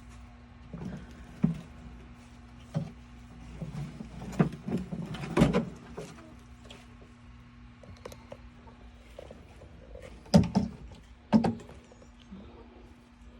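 Irregular scrapes and thumps of dirt being shovelled or raked out from a wheelbarrow load, with a few louder knocks, over a steady low hum.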